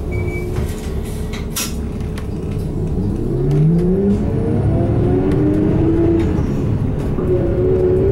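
Isuzu Erga Hybrid route bus, its 7.8-litre six-cylinder turbo-diesel with electric assist motor, heard from inside the cabin pulling away and accelerating. The engine note rises steadily from about three seconds in and grows louder, levels off, then climbs again near the end.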